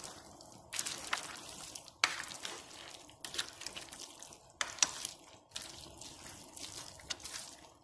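Pasta, chicken and broccoli in a creamy alfredo sauce being tossed and stirred in a stainless steel pot: irregular wet squishing and sloshing, with sharp clicks of the utensil against the pot about 2 seconds in and again near 5 seconds.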